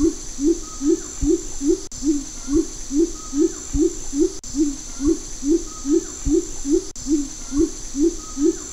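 Biak coucal calling: a long, even series of deep, up-slurred hooting 'wup' notes, about three a second, over a steady high hiss.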